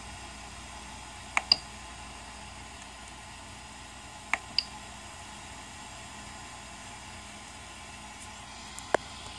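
Control knob of a Prusa i3 MK2S printer's LCD panel being pressed to select menu items: sharp clicks in two quick pairs, about a second and a half in and about four seconds in, and once more near the end, each pair ending in a short high beep. Steady fan noise from the printer, its hotend hot, runs underneath.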